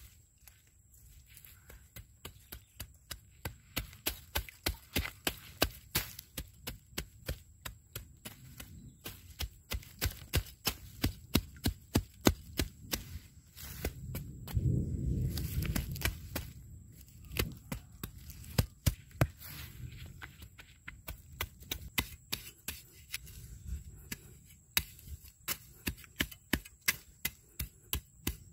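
A long-bladed hand tool hacking and scraping weeds out of soil with repeated short strikes, about two a second, while weeding. A brief low rumble swells about halfway through.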